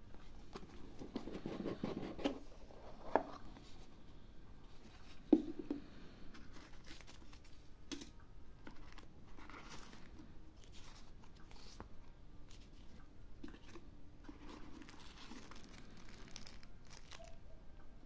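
Cardboard knife box being opened by hand: rustling and scraping as the sleeve and lid slide off, with two sharp knocks about three and five seconds in, and scattered light taps and rustles of card and paper inserts.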